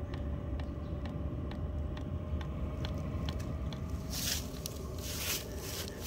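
Diesel air heater's fuel dosing pump ticking about twice a second over the steady low hum of the heater's fan and burner, during start-up while air bubbles are still working out of the fuel line.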